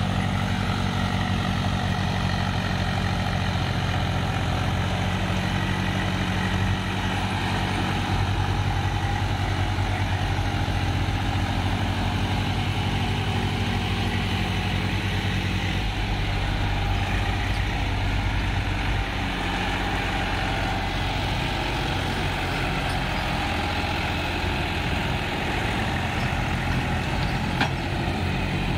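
Diesel tractor engines, including a Swaraj 735 FE, running steadily as the tractors pull trolleys through shallow river water. The engine note shifts about halfway through as a different tractor comes close.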